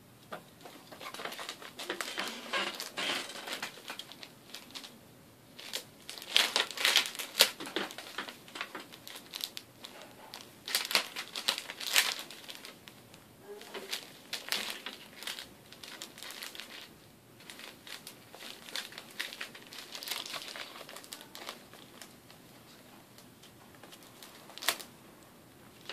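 Paper rustling and crinkling in irregular bursts as a ferret burrows into and shoves around a pile of loose sheets and magazines, with one sharp click near the end.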